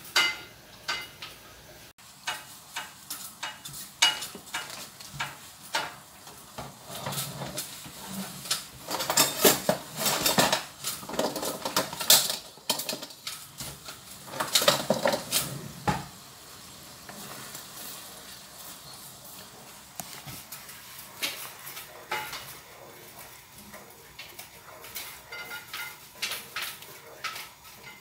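A spatula scraping and knocking against a wok as food is stirred and fried, over a sizzle. The scraping is densest in the middle, then thins to scattered knocks over a steady hiss.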